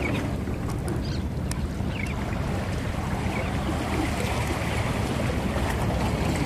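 Steady seaside ambience: wind on the microphone over washing water, with a low rumble underneath and a few faint high chirps in the first couple of seconds.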